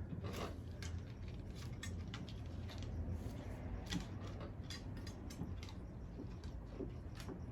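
Macaws crunching and working food with their beaks: irregular small clicks and ticks, some in quick clusters.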